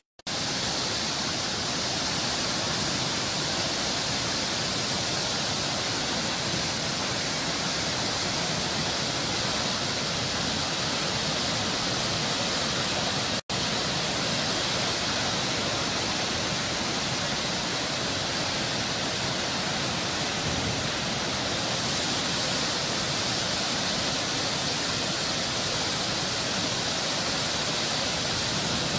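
Steady rushing of fast-flowing muddy floodwater, an even hissing noise, broken once by a momentary gap about halfway through.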